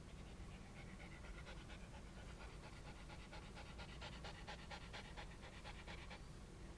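A Japanese Spitz mother panting fast and quietly while whelping, a quick even run of short breaths that stops about a second before the end.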